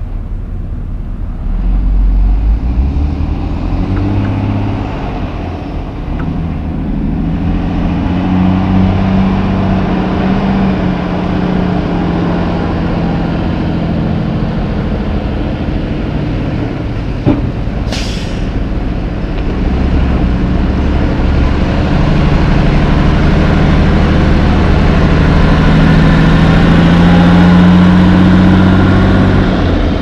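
Mack Granite dump truck with a pup trailer driving off, its diesel engine pulling through the gears and getting louder in the last third. A short hiss of released air a little past halfway.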